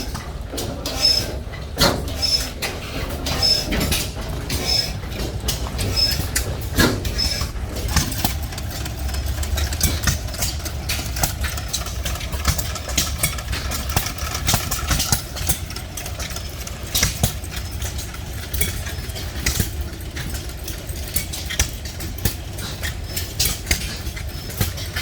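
Hit-and-miss stationary gas engines running, with sharp exhaust pops at uneven intervals over a steady low rumble. For the first several seconds a short high squeak repeats about once a second.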